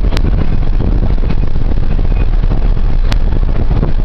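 Car driving: a steady low rumble, with two sharp clicks, one right at the start and one about three seconds in.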